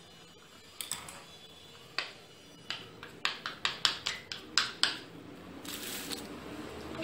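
Metal putty knife scraping and clacking against a plate while mixing tinted tile-filling paste. A couple of single clicks, then a quick run of strokes, about five a second, and a short scrape near the end.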